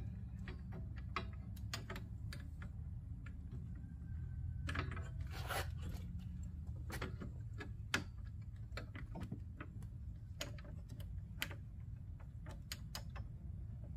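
Scattered small clicks and taps of plastic and metal parts being handled as screws are fitted to hold a light-bar frame behind a van's front grille, with one sharper click about eight seconds in, over a low steady hum.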